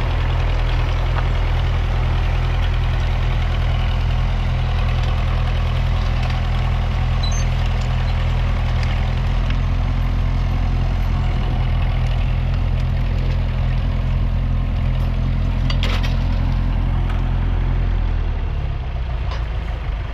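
1961 Massey Ferguson 35's 2.3-litre four-cylinder diesel engine running steadily at an even note; near the end the sound drops a little and its note changes.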